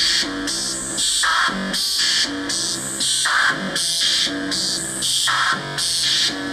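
Homemade noise and rhythm synthesizer, built from 4017 decade counters driving 4046 PLL oscillators, playing a looping sequence that repeats about every two seconds. The loop is stepped pitched tones mixed with noisy, drum-like hiss hits.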